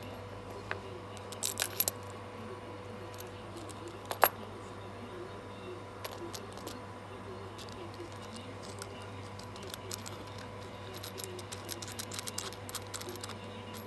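Metal soldering-iron tips clinking against each other and the wooden bench as they are handled: a quick cluster of clicks about a second and a half in, one sharp click around four seconds, and a run of small clicks near the end, over a faint steady hum.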